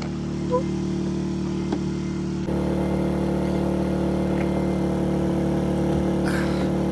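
Boat's inboard diesel engine running steadily, a constant low drone; it gets slightly louder about two and a half seconds in.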